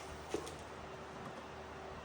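A single light click about a third of a second in, over a faint steady hum.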